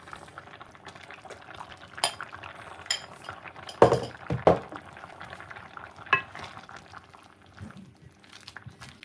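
A pot of vegetable broth bubbling on the stove while it is stirred with a ladle and a wooden spoon, with several knocks and clinks of the utensils against the metal pot, the loudest about four seconds in.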